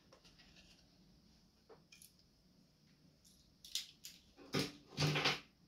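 Quiet room, then near the end three short rustling, scraping handling noises a fraction of a second apart.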